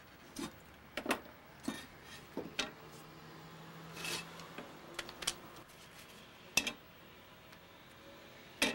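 Handling noises from work on a machete's wooden handle: about a dozen separate sharp clicks and knocks of a metal screwdriver and the machete on a wooden workbench, the loudest two in the second half.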